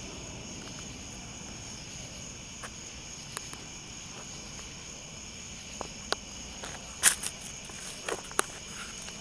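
Steady chirping of crickets, with a few sharp clicks and scuffs: the loudest about seven seconds in, two more just after eight seconds.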